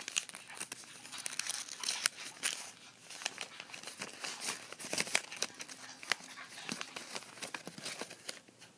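Sheet of paper being folded and creased by hand, with irregular crinkles and sharp rustles.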